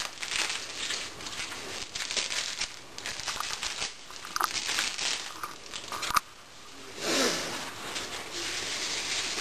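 Plastic wrapping and padding crinkling and rustling as it is pulled and unwound by hand from a new ball-jointed doll, with a sharp click about six seconds in.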